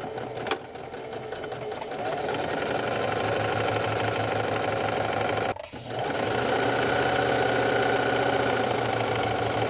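Singer Heavy Duty electric sewing machine stitching a seam, running steadily and picking up speed about two seconds in. It stops briefly a little past halfway, then starts stitching again.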